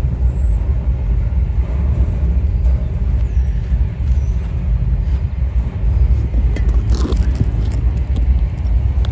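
Propane roofing torch burning with a steady low roar while heating roof patches so they stick.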